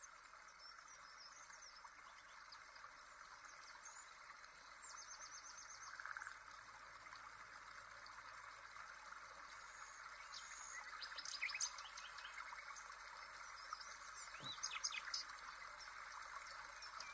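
Faint birdsong: scattered high chirps, with a quick run of chirps about five seconds in and more chirping near the end, over a steady even hiss.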